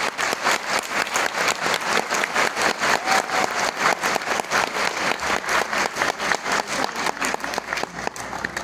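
Audience applauding, with individual claps standing out close by. It drops away at the very end.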